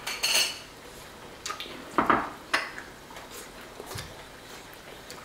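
Chopsticks and dishes clinking and knocking against ceramic bowls and plates: a scattering of separate sharp clinks, the loudest about two seconds in.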